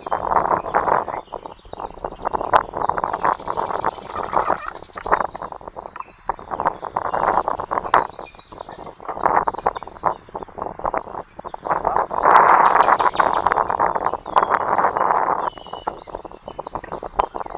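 Birds chirping busily with many short, overlapping calls, mixed with scattered clicks and knocks.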